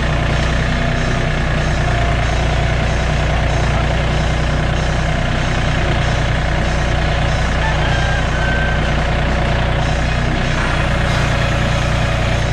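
Farm tractor's engine running steadily at a constant pitch.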